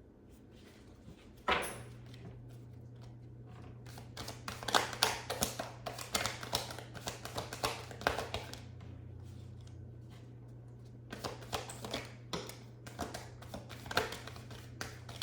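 Tarot cards being shuffled and handled on a table: bursts of quick light taps and flicks of card on card. A low steady hum comes in with a sharp click about a second and a half in.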